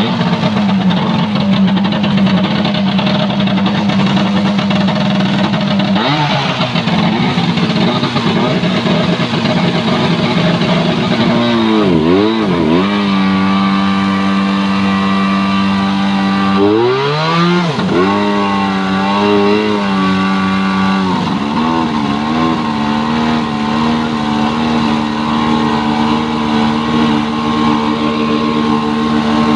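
Tohatsu V50 Rabbit portable fire pump engine running loud and steady on a test run. Its pitch drops and comes back up sharply twice, about twelve and seventeen seconds in, then wavers a few times before settling.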